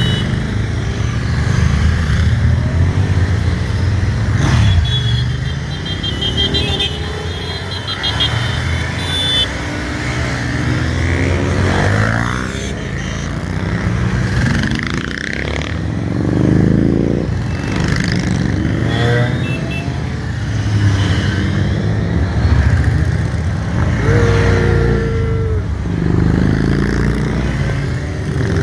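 A long column of motorcycles riding past one after another, each engine rising and falling in pitch as it goes by.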